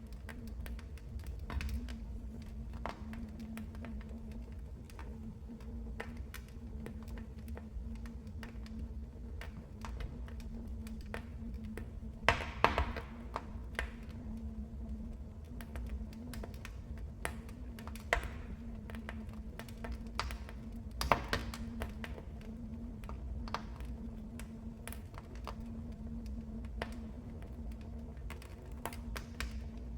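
Fireplace fire crackling: irregular small snaps and pops over a low steady rumble, with a few louder pops around the middle.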